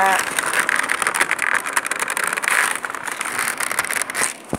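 Clear plastic blister packaging crinkling and rustling as it is handled, with a sharp click near the end.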